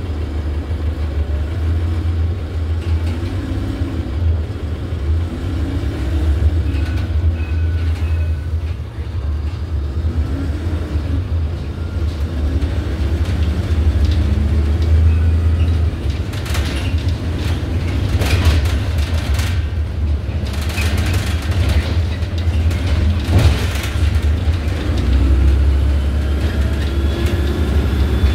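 Iveco Urbanway city bus heard from inside the passenger cabin while driving: a steady low rumble, with the drive note rising and falling again and again. Sharp knocks and rattles come several times in the second half.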